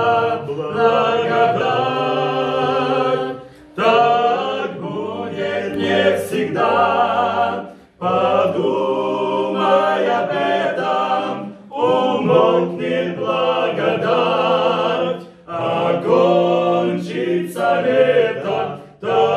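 Men's vocal ensemble singing a hymn in harmony, in sustained phrases of about four seconds with brief breaths between them.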